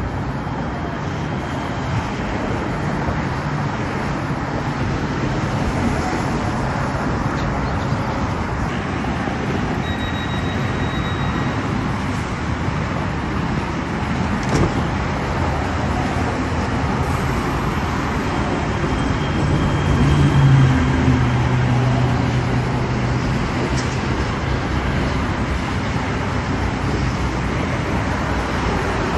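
Steady rush of road traffic mixed with the low hum of a Kinki Sharyo P3010 light-rail train standing at the platform; the hum swells briefly about twenty seconds in.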